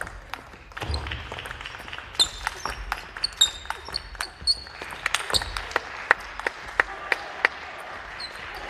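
Fast table tennis rally: the ball is struck by rackets and bounces on the table in a quick series of sharp clicks, several a second. Sports shoes squeak on the wooden gym floor, with a couple of low thuds from footwork.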